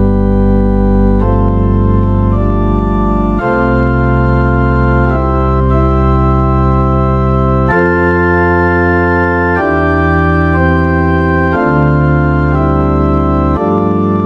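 Yamaha Arius YDP-164 digital piano playing an organ voice: held chords that sustain without fading and change about every two seconds.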